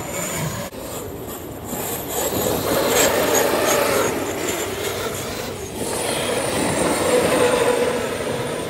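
Large-scale RC cars running on a clay oval track, their motors whining in a wavering pitch that swells twice as they pass.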